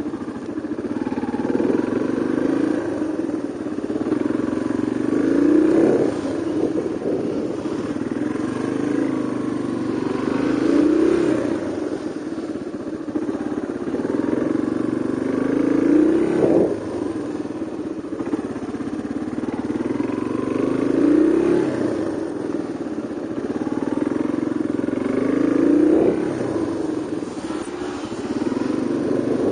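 Yamaha Serow 225's air-cooled single-cylinder four-stroke engine at low riding speed, the throttle opened and eased off again in a repeating rise and fall about every five seconds.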